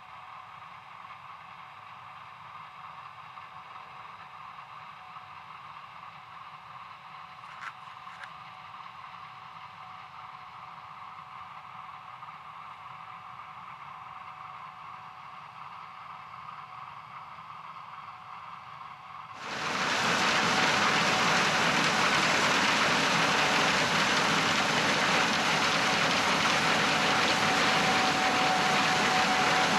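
Gleaner S67 combine running, a steady hum with a constant whine. About two-thirds of the way through, a much louder, even rushing noise cuts in abruptly and holds steady.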